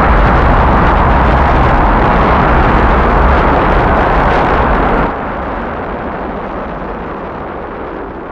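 Rocket engines firing at liftoff: a loud, dense noise with a heavy low end that drops sharply about five seconds in and goes on quieter and thinner.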